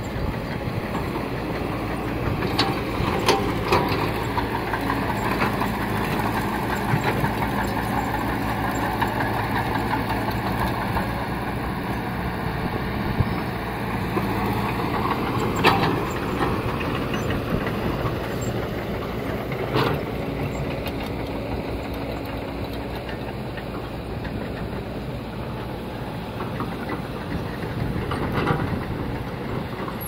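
Caterpillar E120B hydraulic excavator's diesel engine running steadily while it digs, with a few sharp knocks and clatters of rocks and soil dropping from the bucket.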